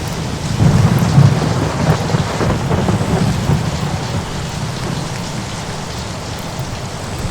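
Thunder rolling over steady rain. A deep rumble swells about half a second in, is loudest around a second in, and fades slowly over the following seconds.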